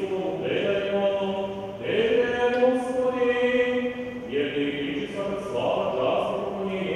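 Liturgical chanting at an Orthodox baptism service: voices sing long held notes that change pitch every couple of seconds.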